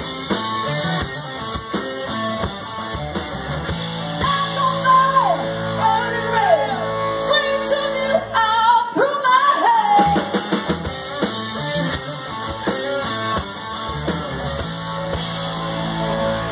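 Live rock band playing: a woman singing over electric guitars and a drum kit.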